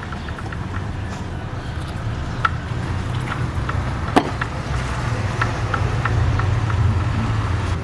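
Car engine running with piston slap: light, irregular knocks over a steady low running sound, a little louder in the second half, the sign of pistons worn loose in their cylinders (worn rings, pistons or cylinder walls).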